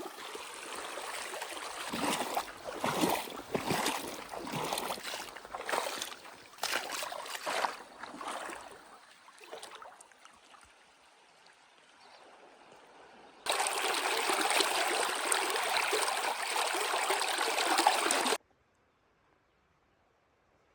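Rushing water of a waterfall, uneven and broken by many sharp knocks over the first several seconds before fading low. A steadier, louder rush cuts in about two-thirds of the way through and stops abruptly about five seconds later.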